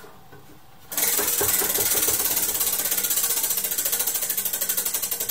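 Tabletop prize wheel spun by hand: its pointer clicks rapidly against the pegs round the rim, starting suddenly about a second in and slowing gradually as the wheel loses speed.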